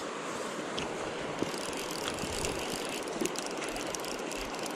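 Steady rush of river water, with rapid, light high ticking from about two seconds in: a fly reel's click-and-pawl drag paying out line to a strong hooked fish.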